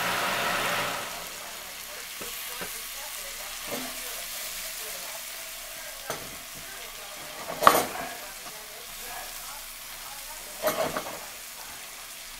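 Chicken and snap peas sizzling in a nonstick frying pan while a fork stirs them, scraping and clicking against the pan, sharpest about two thirds of the way in and again near the end. A louder steady hum stops about a second in.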